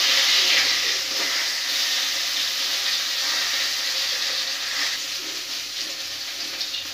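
Fish heads frying in hot oil in a steel kadhai: a steady sizzle that slowly fades.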